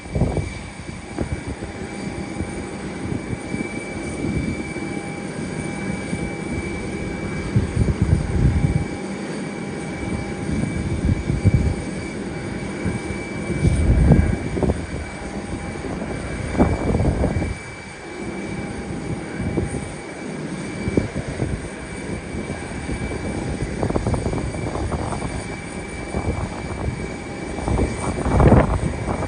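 Jet airliner engines running with a steady high whine over a continuous rush, under irregular low rumbling swells that are loudest about 14 s in and near the end.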